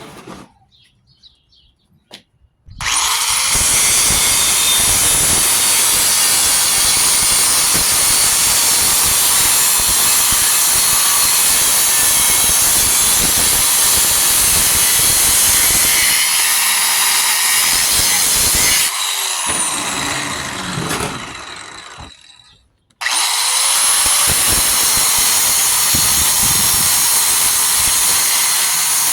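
A power tool cutting into the steel shell of a scroll compressor. It starts sharply about three seconds in and cuts steadily, winds down and stops a little after twenty seconds, then starts again at once and keeps cutting.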